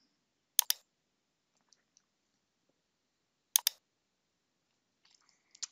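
Computer mouse button clicked twice, about three seconds apart, each click a quick pair of sharp ticks.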